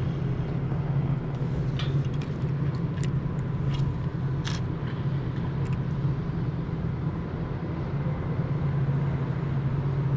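Steady low drone of road traffic, with a few sharp clicks between about two and four and a half seconds in.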